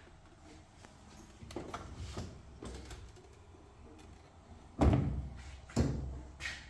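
Light knocks, then two loud clunks about a second apart past the middle and a smaller one near the end, as the washing machine and its parts are handled during the repair.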